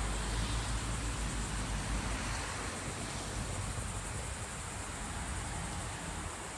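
Steady rushing and low rumble of wind buffeting a phone's microphone while riding a bicycle, easing a little towards the end.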